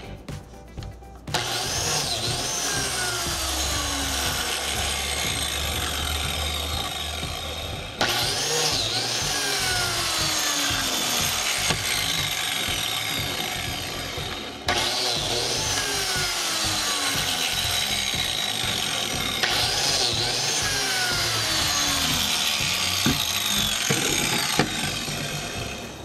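Handheld biscuit joiner running and cutting slots into the edge of a wooden board, with sharp new starts a couple of times.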